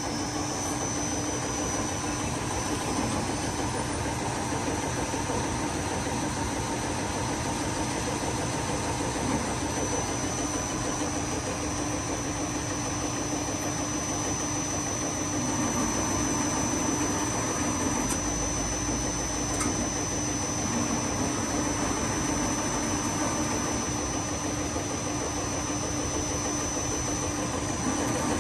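CNC thread-cutting lathe for plastic pipe running, a steady mechanical hum with a thin high whine, growing a little louder about halfway through.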